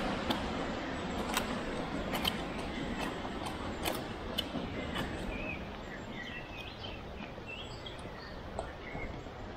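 Soil scraped and scooped by gloved hands digging a tunnel through earth, a steady rustling scrape with scattered sharp clicks of grit and small stones in the first half. Birds chirp briefly several times in the second half.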